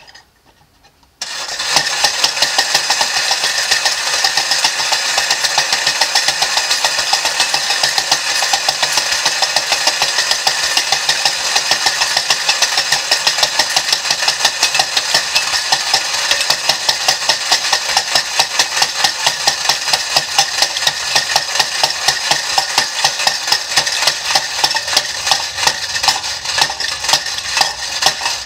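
Unique Art Jazzbo Jim tin wind-up toy running: its spring-driven clockwork whirs while the tin dancer jigs on the tin roof, making a loud, rapid, even metallic clatter that starts about a second in.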